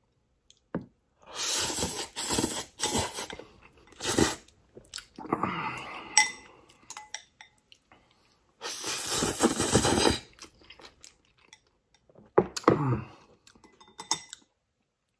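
A person slurping instant ramen noodles from Korean army stew in several long, noisy pulls, chewing between them, with a short hummed "mm" near the end.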